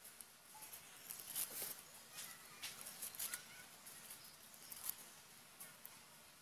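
Hands snapping and tearing fresh spinach stems and roots and rustling the leaves: faint, irregular crisp snaps and crackles.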